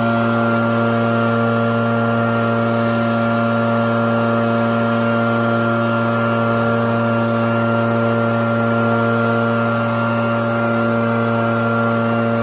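Maruyama BL-9000 backpack leaf blower's two-stroke engine running at a steady, unchanging pitch, with the rush of air from the nozzle blasting leaves.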